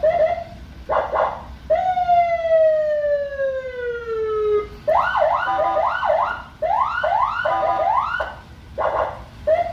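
Senken CJB100BD electronic vehicle siren cycling through its tones. It gives short blips, then a long falling tone lasting about three seconds, then a run of quick rising whoops, two or three a second, and another rising tone near the end.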